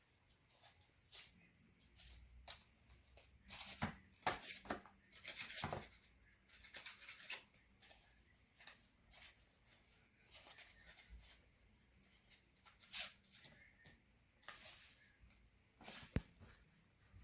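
Marker or crayon colouring on paper: short scratchy strokes coming in irregular spurts, with a light knock near the end.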